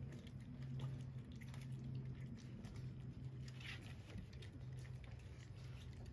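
Several young puppies lapping and slurping milky liquid from a foil pan: faint, irregular wet clicks over a steady low hum, with a short high squeak a little past halfway.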